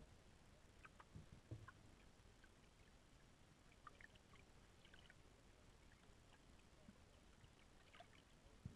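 Near silence from a submerged GoPro in its waterproof housing: a faint low underwater hush with a few scattered faint ticks.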